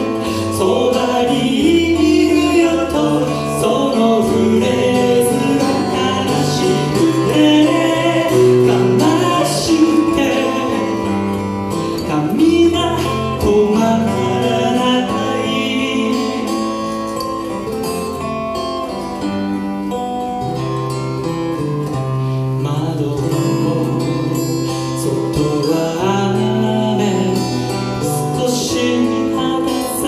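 A song performed live: singing accompanied by two acoustic guitars.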